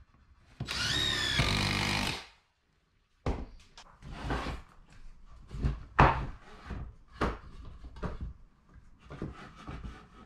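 Cordless drill driving a screw into a timber frame for about a second and a half, its motor whine bending in pitch as the screw bites. Then a run of sharp knocks and taps of timber being handled and set in place.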